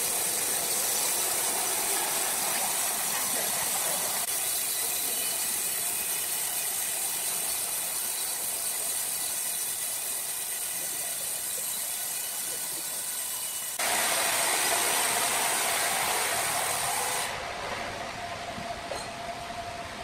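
Horizontal band sawmill cutting lengthwise through a large log: a steady hiss of the band blade in the wood over the running machine. The sound steps up in loudness about fourteen seconds in, then loses its highest hiss a few seconds later.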